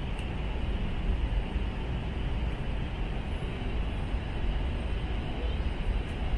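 Steady in-flight cabin noise inside an Airbus A321: an even, mostly low-pitched rush of engines and airflow.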